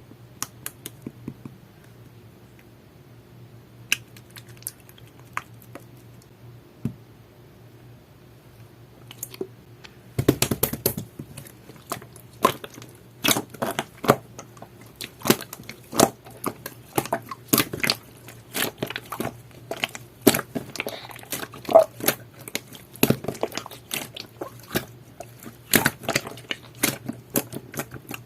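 Jelly-textured slime being pressed and squished by hand, making sharp clicks and pops. A few scattered clicks at first, then a quick, dense run of them from about ten seconds in.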